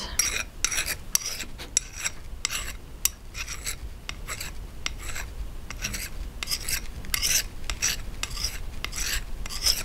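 Flat hand file rasping across the end of sterling silver round wire clamped in a steel miter jig, in short repeated strokes about two or three a second, the file riding on the jig face as it files the wire end flat and flush.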